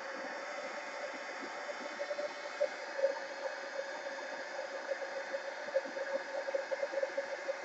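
Steady background hiss with a faint steady hum, broken by soft irregular taps, most of them near the end: a foam dauber dabbing paint onto a paper journal page.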